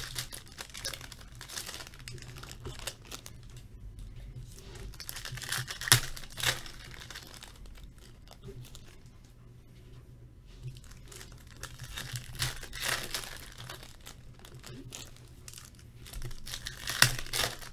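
Metallic foil trading-card pack wrappers being torn open and crumpled in short bursts a few seconds apart, with quieter rustling of cards being handled between.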